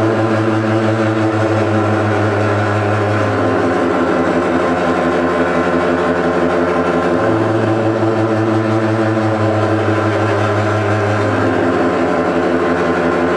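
Live amplified band playing a loud, distorted drone: a sustained low note held under a dense wash of guitar noise, shifting pitch about every three to four seconds.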